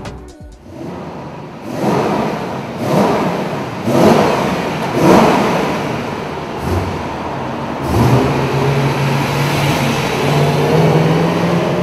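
BMW E92 M3's V8 with a stainless cat-back mid pipe and stock muffler, revving in a run of swells about a second apart, then settling into steady running near the end.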